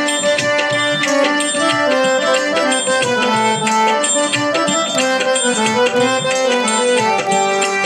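Harmonium playing a melody of held, stepping notes over a tabla beat: an instrumental interlude between sung verses of a devotional song.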